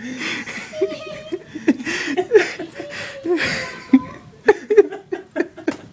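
People laughing and chuckling in short, breathy bursts, with a run of sharp clicks near the end.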